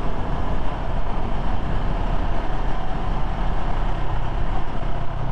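CFMoto CLX 700 motorcycle cruising at a steady speed: its parallel-twin engine running under light throttle through the stock exhaust, mixed with steady wind and road rush.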